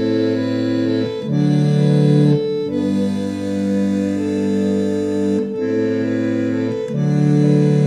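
Keyboard played live with an organ-like tone, holding sustained chords that change every one to three seconds.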